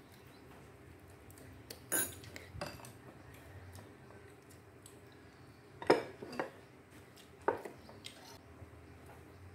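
Spoons and chopsticks clinking against ceramic bowls while people eat: about five separate short clinks, the loudest about six seconds in.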